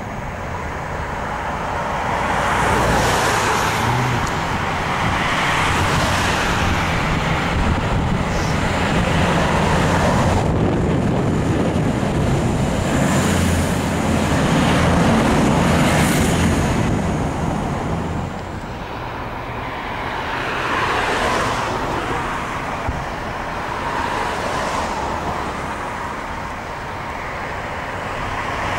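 Diesel train engines running in a railway yard: a V/Line VLocity diesel railcar runs past close by while a group of diesel-electric locomotives moves at low speed. The low engine rumble is strongest in the first two-thirds and eases off about two-thirds of the way in.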